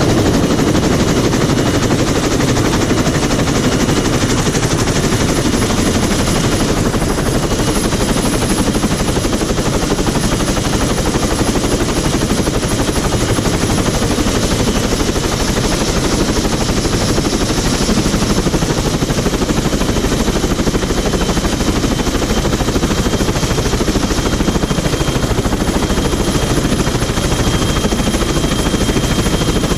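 CH-46E tandem-rotor helicopter running on the ground with both rotors turning: a rapid, steady chop of the blades over the high whine of its twin turboshaft engines.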